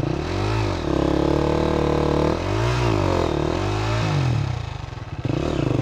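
Single-cylinder enduro dirt bike engine revving up and down on a steep hill climb, its pitch rising and falling several times as the rider works the throttle.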